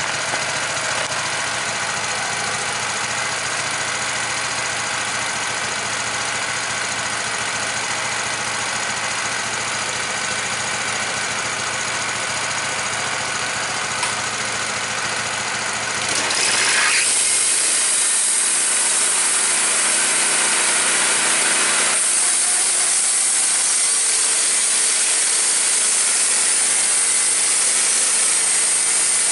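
Wood-Mizer LT15 band sawmill's gasoline engine running steadily. About halfway through the sound changes and gets louder, with a strong high hiss: the band blade starting its cut through a white oak log.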